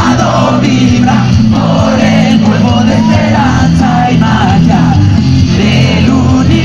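Rock band playing live with a lead singer, loud and continuous.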